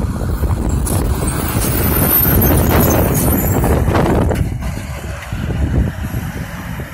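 Diesel front-loader garbage truck passing close by and crossing railroad tracks: engine and tyre noise loudest in the middle, with a few knocks as it rolls over the rails, then fading as it pulls away.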